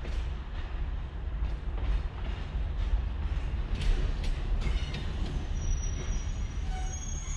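Narrow-gauge Alishan Forest Railway train approaching slowly: a steady low rumble with repeated clicks of the wheels over the rail joints. A thin high wheel squeal sets in near the end.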